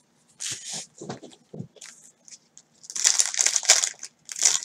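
Trading-card pack wrappers crinkling as gloved hands handle them: a few soft rustles at first, then louder, dense crackling from about three seconds in as a pack is picked up and worked in the hands.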